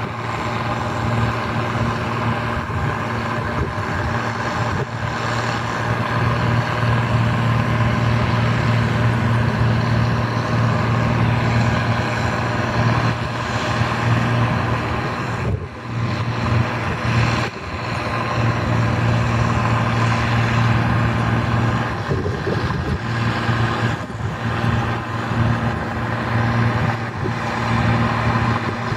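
Bizon Z056 combine harvester's naturally aspirated six-cylinder diesel engine running steadily and loudly, with a deep, even hum, briefly easing twice about halfway through.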